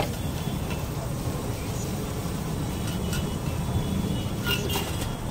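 Steady low street rumble, with a few light metallic clicks of a knife blade striking a flat steel griddle (tawa) as it cuts through an egg pizza: one about three seconds in and two close together near the end.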